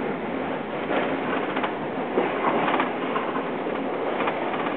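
Vintage tram running on its rails: a steady rattle and rumble of wheels and car body, with scattered metallic clacks.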